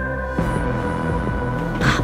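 Eerie synth soundtrack music: high notes held steady over a regularly repeating low pulse, the texture shifting about half a second in. A short noisy burst, the loudest moment, comes near the end.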